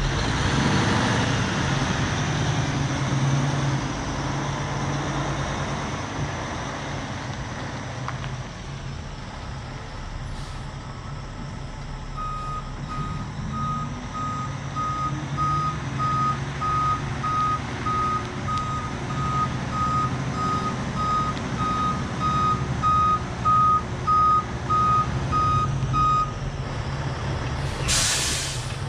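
Heavy diesel vehicle running and pulling out of muddy ruts, its engine revving up partway through while a backup alarm beeps steadily for about fourteen seconds. A brief loud hiss near the end.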